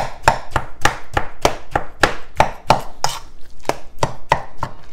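Metal spoon stirring and chopping through a ground beef, rice and egg mixture in a stainless steel mixing bowl, striking the bowl in a steady rhythm of about three strokes a second.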